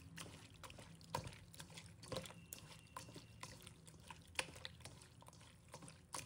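Faint, irregular wet squelches and small smacks of hands kneading sliced raw pork liver in a wet marinade in a stainless steel bowl.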